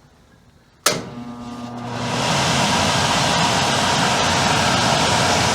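Furnace blower starting up, with a new blower motor: a sharp click about a second in, then the motor hums and winds up as the rush of air builds over about a second to a steady, loud running noise.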